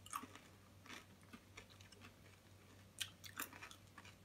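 Faint crunching of Reese's Pieces, peanut butter candies in a crunchy shell, being chewed, with a few sharper crunches about three seconds in.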